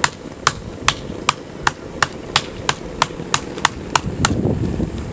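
Kitchen knife chopping the husk off a green coconut: sharp, regular strikes about three a second, getting slightly faster, over a steady high-pitched background tone.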